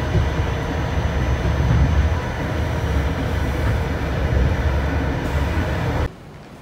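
Inside a moving passenger train carriage: a steady low rumble of the wheels running on the track, cutting off abruptly near the end.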